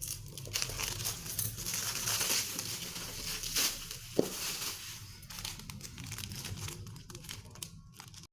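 Plastic packaging crinkling and rustling as a parcel is unwrapped, with a sharp tick about four seconds in.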